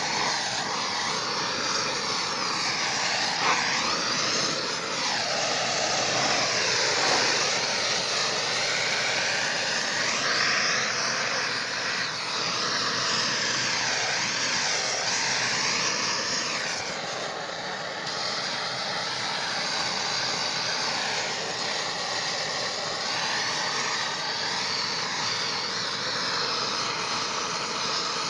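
Gas blowtorch burning with a steady rushing hiss as its flame is played over a wooden beehive box, scorching the wood to clean it.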